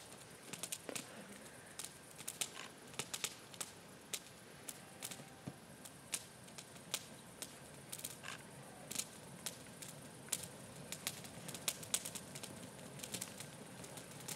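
A fire crackling: irregular sharp pops and snaps, several a second, over a faint hiss.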